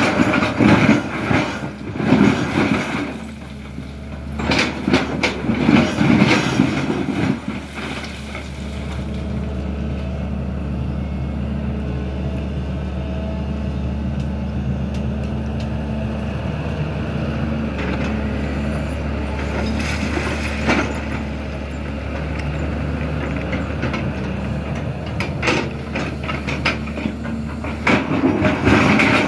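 SANY hydraulic excavator's diesel engine running steadily, with stretches of clanking and knocking from the digging gear near the start and again near the end.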